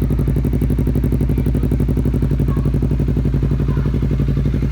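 Honda CBR250RR parallel-twin engine idling steadily through an R9 Austin full carbon titanium aftermarket exhaust, heard close to the muffler, with an even pulsing beat.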